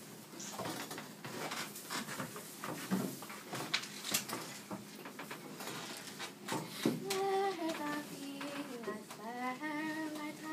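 Rustling and handling of a cloth costume, with scattered small knocks. About seven seconds in, a child starts singing a slow tune in held notes.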